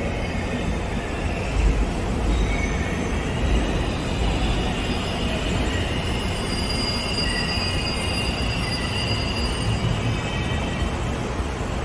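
Seoul Subway Line 4 electric train running into the platform behind the screen doors: a steady low rumble with thin, high squealing tones from the wheels and brakes.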